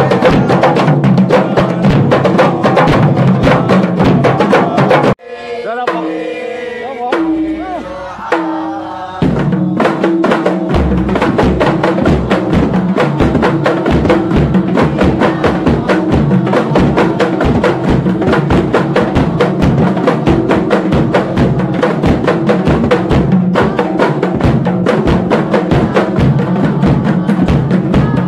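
A group of kompang frame drums played by hand in fast interlocking strokes. About five seconds in the drumming stops and a single voice sings a short line alone, then the drums come back in with deeper strokes under the rapid slaps.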